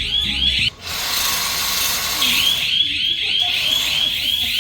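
Cobra Cat catalytic converter anti-theft alarm sounding: a loud electronic siren repeating a rising-and-falling chirp about three times a second. Less than a second in it breaks off for about two seconds of hiss, then the chirping starts again.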